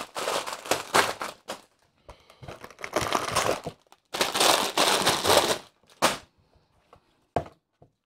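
Clear plastic bags of Lego bricks crinkling as they are picked up and handled, in three long stretches, followed by a couple of short light knocks near the end.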